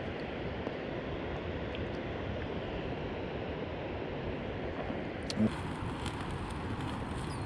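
Steady rushing outdoor noise of wind and surf, with a few faint ticks and one sharp knock about five seconds in.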